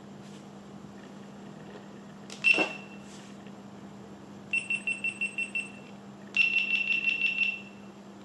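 A button click with a short beep, then two runs of rapid high-pitched beeps at the same pitch, the second louder, from GoPro action cameras (Hero 8 and Hero 7 Black) powering on from the record button and starting to record. A steady low hum runs underneath.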